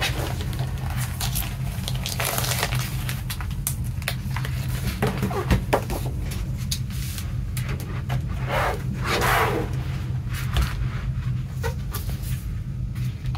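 Clear plastic wrapping film crinkling and rustling as it is slid off a CD/DVD package, with light taps and scrapes of the hard cardboard case being handled and opened, over a steady low hum.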